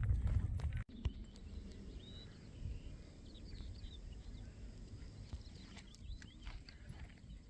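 Wind rumbling on the microphone with footsteps, cut off abruptly about a second in, then quiet open-air ambience with a few short bird chirps and scattered faint ticks.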